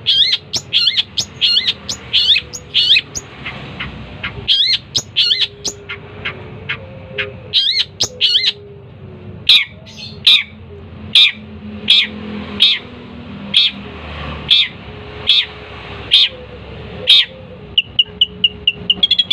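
Long-tailed shrike (cendet) in full song, a run of loud repeated chirping notes. At first they come in quick looping phrases. About halfway through they turn to single sharp notes roughly once a second, and near the end to a rapid string of short notes.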